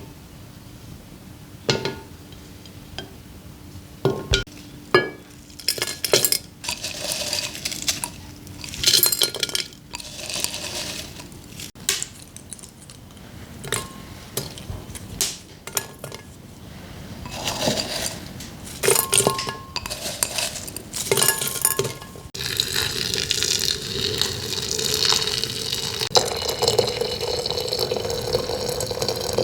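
Dishes, pots and glassware clinking and knocking, then from about 22 seconds in a steady rush of running water.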